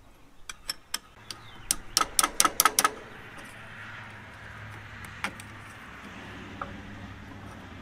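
Metal hand tools clicking and clinking on a battery cable terminal bolt as pliers are worked onto it. A quick run of sharp clicks, about five a second, comes between one and three seconds in. After that come a few scattered clicks over a steady low hum.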